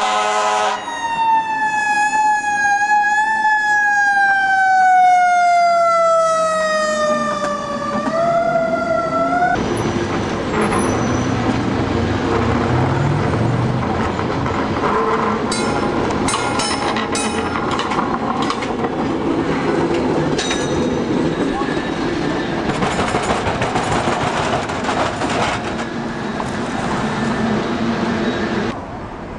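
A siren's wail: one tone sliding slowly down in pitch for about eight seconds, then rising again briefly before it cuts off. After it, street and traffic noise as a cable car passes, with a low rumble and a run of sharp clanks in the middle.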